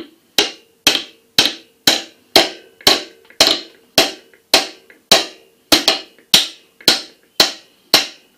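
Hammer tapping on a wooden stick laid across a piston crown, driving the piston and its rings down into the cylinder sleeve of a John Deere 410 backhoe engine block. There are about sixteen even taps, roughly two a second, each with a short ring.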